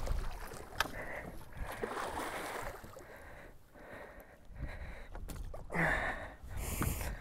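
Lake water lapping and splashing against the side of a small fishing boat in uneven washes, with a few light clicks and knocks.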